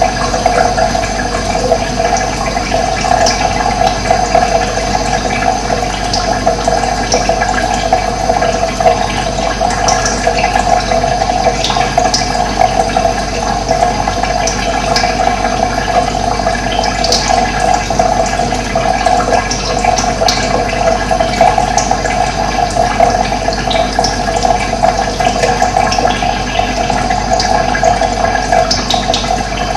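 Running water flowing steadily, with short, high bird chirps here and there.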